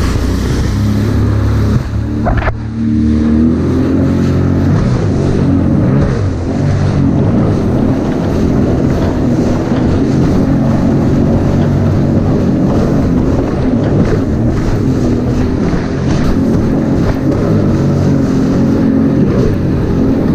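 Sea-Doo jet ski's engine running at speed, its note rising and falling as the throttle changes, with water spray and wind on the microphone. The engine note dips briefly about two seconds in, then picks up again.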